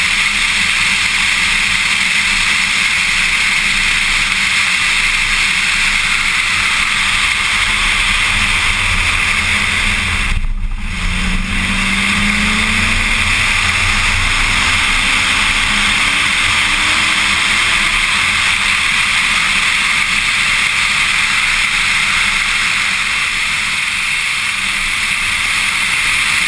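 Heavy wind rush over a Corvette Z06 at track speed, with its V8 engine running underneath. About ten seconds in the sound dips briefly, then the engine note climbs steadily as the car accelerates.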